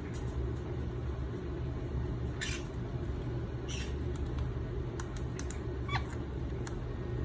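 Indian ringneck parakeet giving a few short, soft chirps and scratchy calls, with a few light clicks, over a steady low hum.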